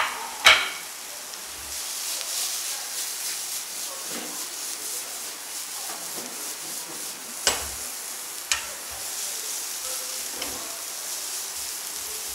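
Vegetables sizzling in hot oil in a frying pan while a wooden spatula stirs them, with a few sharp knocks of the spatula against the pan, the loudest about half a second in.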